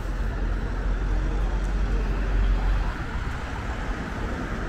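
City street traffic: cars passing on the road with a low rumble of engines and tyres, swelling a little past halfway as a vehicle goes by.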